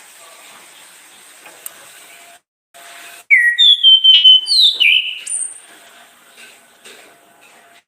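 Orange-headed thrush (anis kembang) singing a short, loud phrase of clear whistled notes that slide up and down. The phrase starts about three seconds in, lasts about two seconds, and stands over a faint background hiss.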